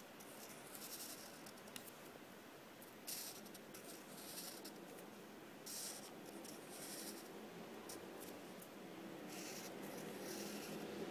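Black marker drawing on paper: faint, short scratchy strokes, coming and going as lines are drawn.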